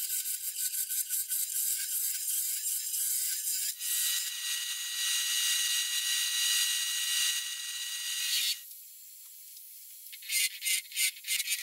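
Wood turning on a lathe: a chisel cutting the spinning wooden handle in quick rasping strokes, then sandpaper held against it giving a steadier hiss for about five seconds. A few short, sharp scrapes follow near the end.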